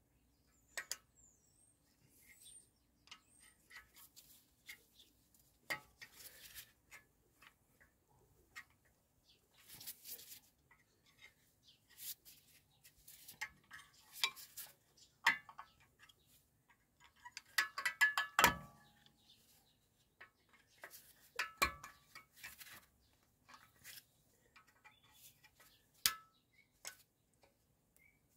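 Screwdriver levering at a metal clip on the front brake caliper of a VW T5.1 van: scattered faint metal clicks and scrapes, with one louder ringing metal clink about eighteen seconds in.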